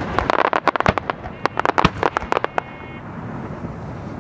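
Aerial fireworks shells bursting: a rapid string of sharp pops and cracks for about the first two and a half seconds, thinning out after that.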